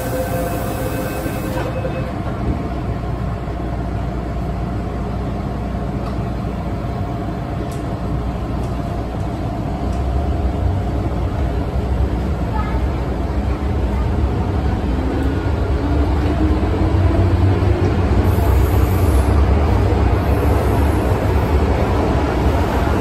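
Interior of an MTR M-Train subway car: door-closing warning tones end about two seconds in, then the train pulls away. Its low running rumble grows louder from about ten seconds in, with a faint motor whine rising in pitch as it speeds up.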